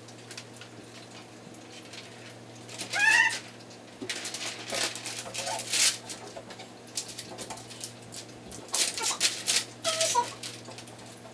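Wet plastic window film crackling and squeaking as it is handled and pressed against the glass, in two stretches of rustling. About three seconds in, a short, loud, high-pitched animal cry rises in pitch.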